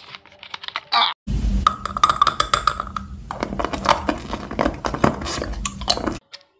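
Close-miked crunching and crackling of a sugary, crystal-coated candy being bitten and chewed, a dense run of sharp clicks over a steady low hum that cuts off near the end.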